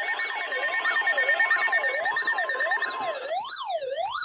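Electronic emergency-alert siren tone from a device going off: a steady rising-and-falling wail, with steady beeping tones underneath that drop out about two and three seconds in.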